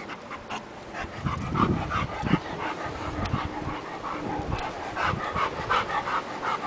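A large black dog panting in quick, rhythmic short breaths, several a second, starting about a second in. A few dull thumps come in the first couple of seconds of the panting.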